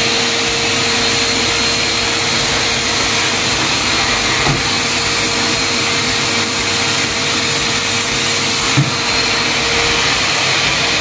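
Vacuum cleaner running steadily as its hose and wand work over a tiled floor, a constant rush of air with a steady motor whine; a couple of small knocks partway through.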